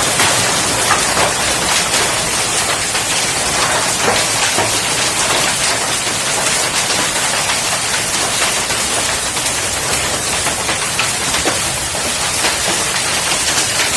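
Heavy rain mixed with hail: a steady, loud rush of rain peppered with many sharp clicks and knocks of hailstones striking hard surfaces.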